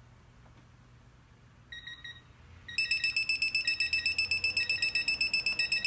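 Digital torque wrench beeping: a few short high beeps about two seconds in, then rapid, evenly pulsed high-pitched beeping for the last three seconds, the alert that the preset torque of 100 ft-lb has been reached on the pull.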